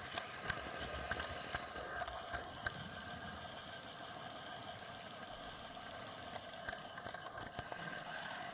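Model train running with a camera riding on board: a steady motor whine with irregular clicks and rattles from the wheels on the track, bunched in the first three seconds and again near the end.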